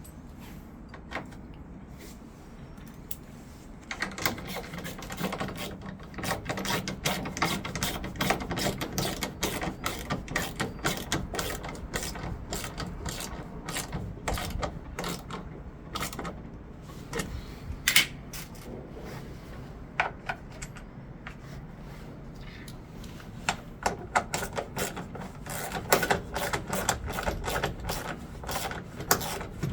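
Rapid, irregular mechanical clicking and clattering of tool work on a washing machine while its balancing weights are fastened on. The clicking starts a few seconds in, eases off for a few seconds past the middle, then picks up again.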